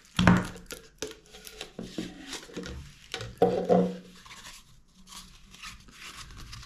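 Clear plastic packaging tube handled: its lid knocking and the plastic scraping in a few sharp clatters, the loudest just after the start and another cluster about three and a half seconds in. A rolled paper instruction leaflet rustles as it is slid out and unrolled near the end.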